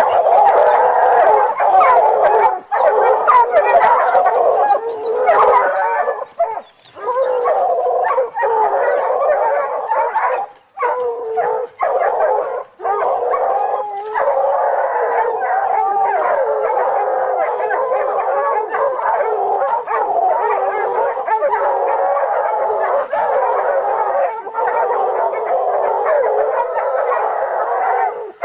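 Dogs howling and yelping in a long, wavering, overlapping chorus, broken by a few short pauses.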